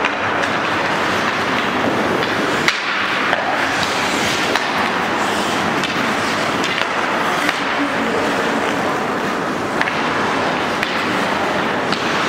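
Ice hockey play on an indoor rink: a steady scrape of skate blades on the ice, with scattered sharp clacks of sticks, puck and boards. The loudest knock comes a little under three seconds in.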